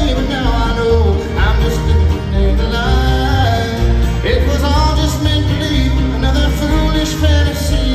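Live bluegrass band playing an instrumental passage: a steady bass beat under lead lines that slide up and down in pitch.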